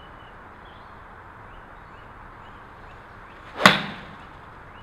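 Golf iron striking a range ball off a hitting mat: one sharp crack about three and a half seconds in, over faint steady background hiss.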